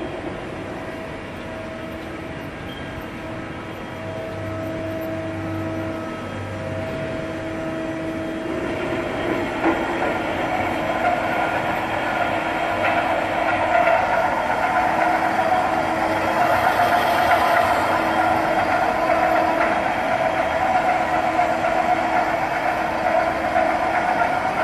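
Workshop machinery running with a steady mechanical hum that carries a few held tones. About nine seconds in it grows louder and rougher.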